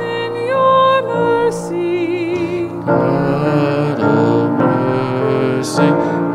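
Slow church singing with piano accompaniment: sustained sung notes with vibrato over held piano chords, the sound growing fuller about three seconds in.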